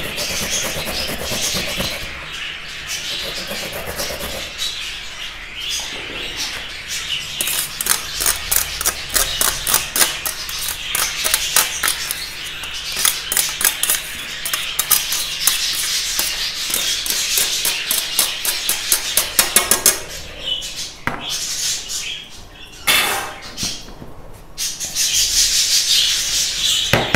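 Carrots being rubbed by hand over a flat metal grater plate, a run of quick scraping strokes, with budgerigars chirping and chattering throughout. Near the end there is a sharp knock, and a fork scrapes as the grated carrot is stirred in a bowl.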